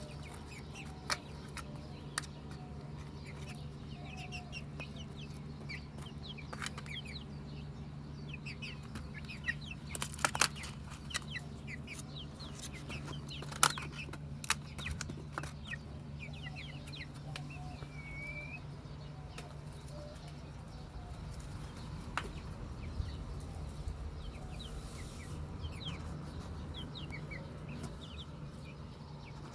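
Chickens clucking and chirping in many short calls, with a few sharp taps or clicks about ten and thirteen seconds in, over a steady low hum.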